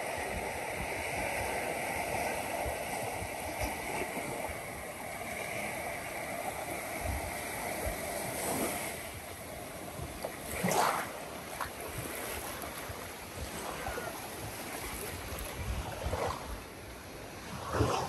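Waves washing onto a beach, a steady rush of surf mixed with wind, with a few short louder sounds about halfway through and near the end.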